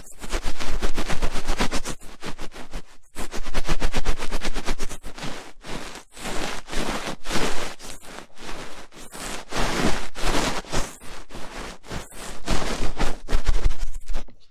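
A microphone being rubbed and scratched right at the capsule, the 'mic-rubbing' ASMR of Chinese livestreams. It gives a loud, rapid run of scratching and rustling strokes with short breaks every second or two, and stops abruptly near the end.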